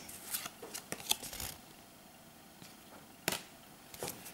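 Pokémon trading cards being handled and sorted by hand: light clicks and flicks of card stock, several in quick succession at first, then one sharper snap a little past three seconds in.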